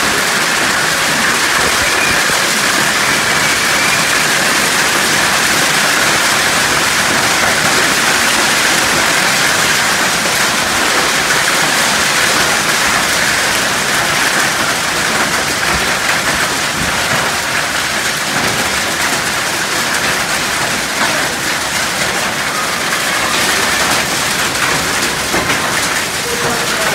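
Heavy rain mixed with small hailstones pelting a concrete path and gravel, a dense, steady hiss of countless impacts.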